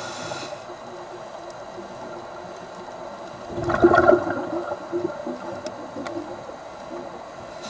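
A scuba diver breathing through a regulator underwater. A hiss of inhaled air fades in the first half second, and about three and a half seconds in a burst of exhaled bubbles gurgles out, the loudest sound.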